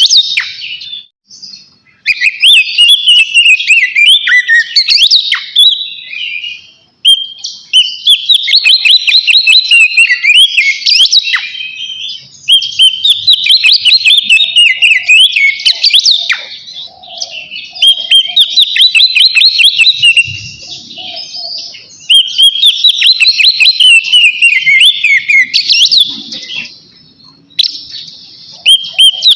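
Oriental magpie-robin (kacer) in loud full song (ngeplong): long, fast phrases of varied whistles and trills, broken by a few short pauses. It is the bird's challenge song, calling out a rival.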